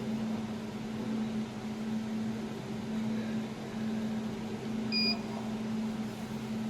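Desktop laser welding machine running after start-up, a steady hum from its built-in water chiller and cooling, with a single short electronic beep about five seconds in.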